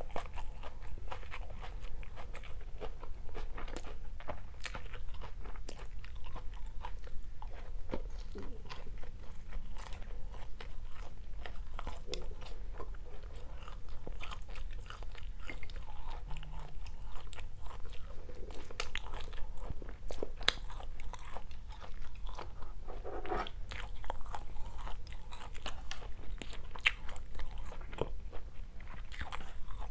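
Close-miked chewing and biting of stir-fried rice vermicelli with fried tofu and vegetables: a continuous run of small wet crunches and mouth clicks. A faint steady low hum sits underneath.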